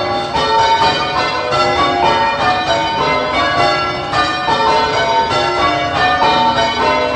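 Church tower bells being rung full-circle by rope in English change ringing, a continuous run of overlapping bell strikes, heard from the ringing chamber below.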